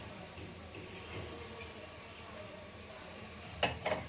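Light clinks of a utensil against a clay cooking pot: two faint ones early, then two sharper clinks near the end, over a quiet steady background.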